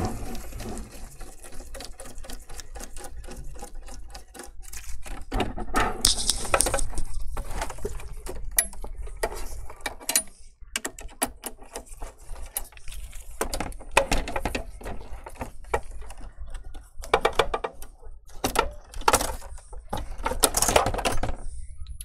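Bursts of quick clicking and clattering as a screwdriver turns out the screws that hold the metal stand on an HP all-in-one desktop, with the stand and its hinge being handled.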